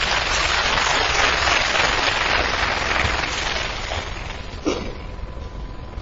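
Snooker audience applauding. It starts at once and dies away after about four seconds.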